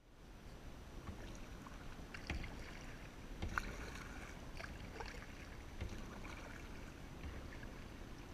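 Kayak paddling on calm water: the paddle blades dip and splash in turn, with drips and small knocks against a steady low rush of noise.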